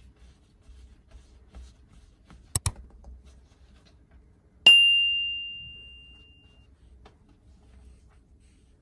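On-screen subscribe-button sound effect: a quick double click, then about two seconds later a single bright bell-like ding that rings out and fades over about two seconds.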